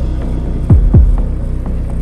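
Background electronic music: a deep bass kick drum that drops in pitch, struck twice in quick succession about two-thirds of a second in, over a steady bass line and light ticking percussion.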